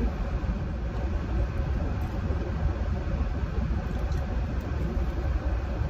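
Steady low rumble inside a parked car's cabin: the idling engine with the air conditioning running.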